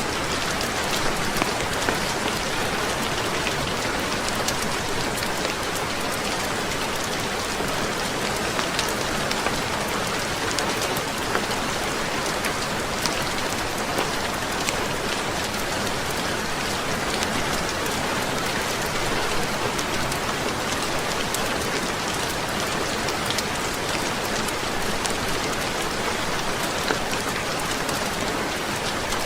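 Heavy rain falling steadily, a dense even hiss with many small sharp ticks scattered through it.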